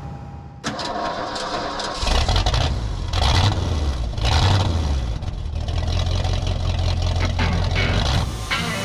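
An engine starts and is revved up and down a few times, then runs steadily.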